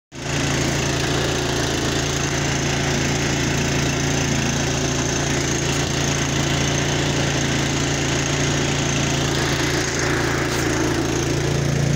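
Two-stage gas snow blower engine running steadily.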